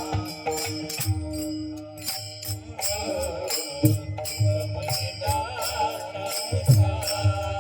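Marathi devotional kirtan music: a steady rhythm of drum beats and small jingling percussion, with a voice singing a wavering melodic line from about three seconds in.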